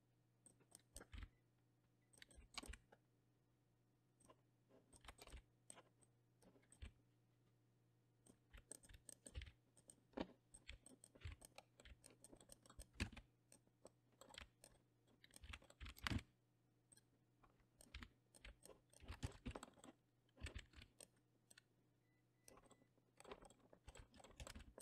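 Faint, irregular clicking of a computer keyboard and mouse: single keystrokes and button clicks as shortcuts are pressed, a few each second at times, with gaps between.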